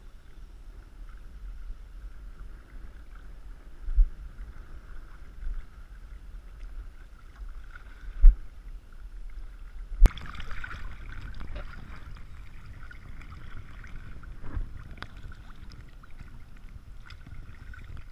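Wind buffeting the microphone over shallow water that laps and splashes steadily, with a few sharp knocks about 4, 8 and 10 seconds in. The water noise grows busier after the last knock.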